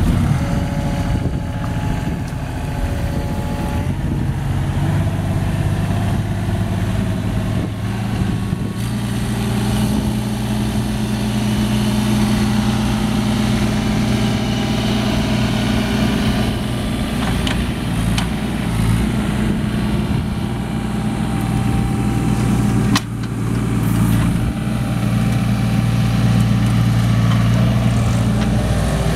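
Bobcat 325 mini excavator's diesel engine running steadily while the machine tracks, swings and works its boom, the engine note stepping up a few times. One sharp clank comes late on.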